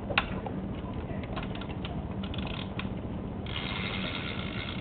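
Spring-loaded Lego winch on a toy truck reeling in its cord and pulling a Lego trailer across a wooden floor: the plastic ratchet and gears click and tick, with a steadier hiss joining in about three and a half seconds in.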